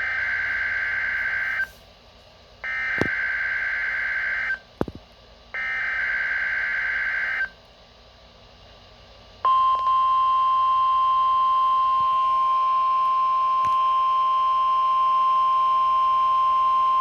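NOAA Weather Radio Specific Area Message Encoding (SAME) test. Three raspy digital data bursts, each about two seconds long with a second's gap between them, then about halfway through the steady 1050 Hz warning alarm tone begins and holds.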